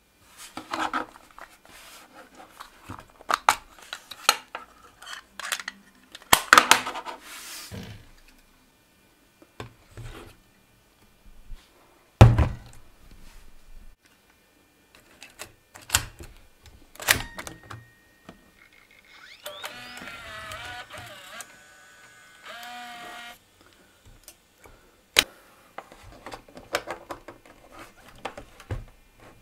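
Clicks and clunks of a MiniDV cassette being handled and loaded into a Sony VX1000 camcorder, its tape door and transport mechanism snapping and knocking, the loudest thunk about twelve seconds in. Past the middle a whirring sound with a brief rising pitch runs for about four seconds.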